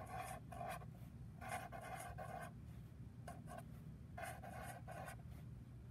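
Black felt-tip permanent marker squeaking and scratching on paper as it draws small wave shapes, in a run of separate strokes, some short and a couple about a second long, with brief pauses between them.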